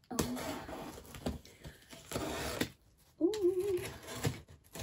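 Box cutter slicing through packing tape on a cardboard box, with rasping and scraping as the blade and tape drag along the cardboard. A brief wavering squeak about three seconds in.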